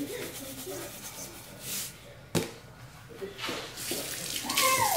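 Salt shaken from a shaker onto raw tilapia fillets in a stainless steel bowl: a few short, hissy rattling spells, with one sharp knock about halfway through. A short falling squeak near the end.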